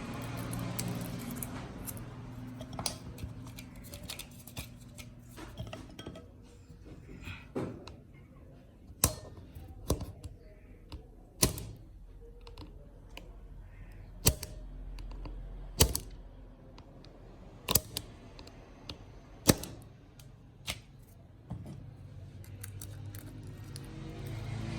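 Irregular sharp clicks and taps of small hand tools against the phone and the work surface, about a dozen loud ones scattered at uneven intervals during iPhone back-glass removal.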